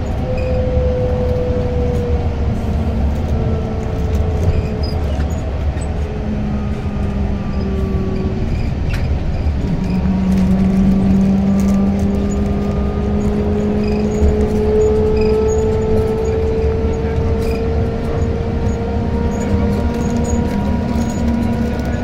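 Cabin noise of a moving electric intercity bus: a steady low road rumble with a humming whine from the drive. The whine slowly falls in pitch over the first several seconds, then climbs again as the bus speeds up.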